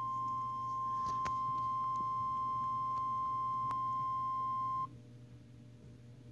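Emergency alert warning tone: a single steady pitch near 1 kHz, which cuts off abruptly about five seconds in. It is the alarm that signals a flash flood warning is about to be broadcast.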